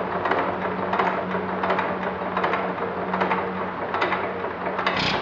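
1919 Economy 2½ hp Model E hit-and-miss gas engine turning over on its third starting attempt, clattering in a steady rhythm of two to three strokes a second. A louder bang comes about five seconds in.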